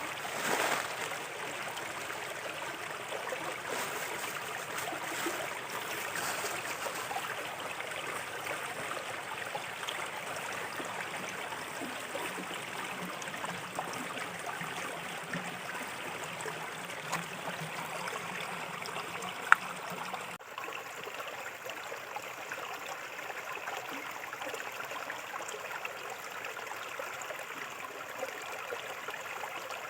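Small river flowing steadily over stones, a continuous babble of water with a slightly louder surge at the start. A single sharp click about two-thirds of the way through.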